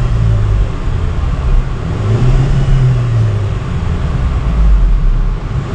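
Range Rover Evoque engine running and being revved, its pitch rising and falling back twice. With the leaking PCV valve replaced, it picks up revs cleanly and no longer misfires.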